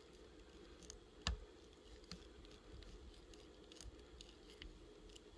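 Faint scattered ticks with one sharper click about a second in, from fly-tying tools and thread being handled at the vise while a thread base is built for the fly's head, over a low steady room hum.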